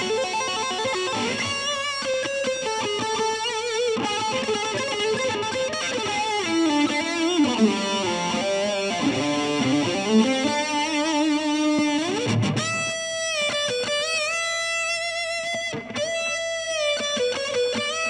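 Electric guitar playing a lead solo through an overdrive boost, reverb, tape echo and a slow, low-set flanger: a quick run of notes, then bends and slides, a long upward slide about twelve seconds in, and held notes with wide vibrato near the end.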